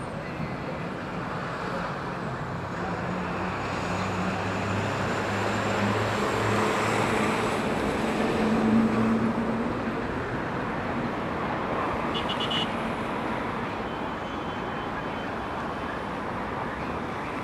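Road traffic: a motor vehicle's engine passing by, growing louder toward the middle and then fading, over a steady hum of street noise.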